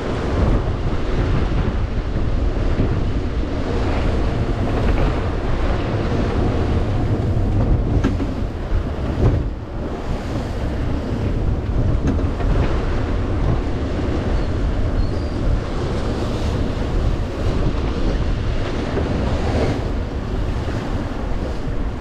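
Strong wind blowing on the microphone over the rush of waves and water along the hull of a sailing yacht heeled hard in rough, whitecapped sea. The noise is dense and steady, heaviest in the low end.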